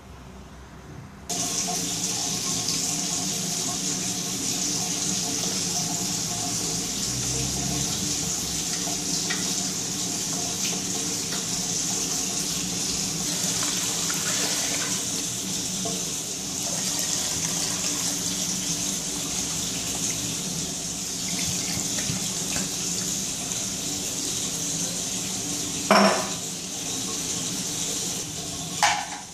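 Tap water running steadily into a metal pot, filling it, starting about a second in, with a steady hum under the splashing. One sharp knock near the end.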